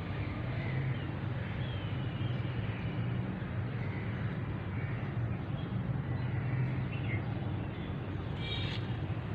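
Steady low outdoor rumble with faint bird chirps over it, and a brief click about eight and a half seconds in.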